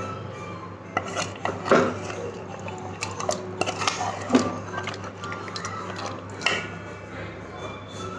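A utensil scraping and clinking against a cooking pot as thick chicken and tomato masala is stirred, in irregular knocks and scrapes.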